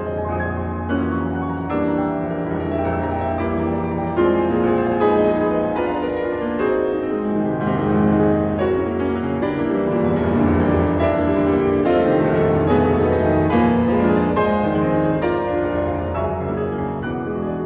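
Solo piano music, with a quick, steady succession of notes.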